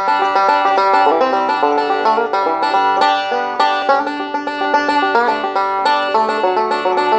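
Gibson Bowtie resonator banjo with a flathead tone ring, picked in a fast, unbroken stream of bright notes.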